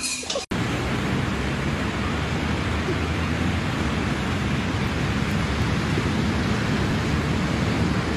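Wind on the microphone and ocean surf: a steady, loud rush of noise. In the first half-second, before it, there is a short loud burst of noise that cuts off abruptly.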